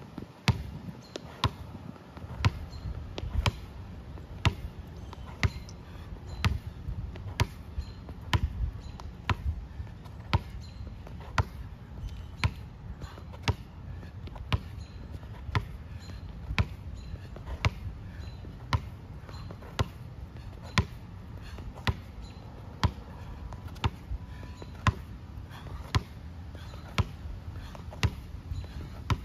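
Basketball dribbled on an asphalt court in hang-and-cross dribbles: sharp bounces about one to two a second, a louder one roughly every second with softer ones between.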